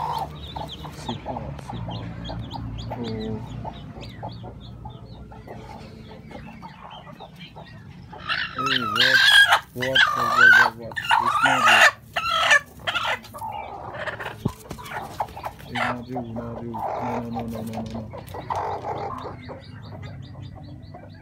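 Broody hens clucking as a hand reaches under them on their eggs, with a burst of loud squawking about eight seconds in that lasts several seconds: a sitting hen protesting at being disturbed on her nest.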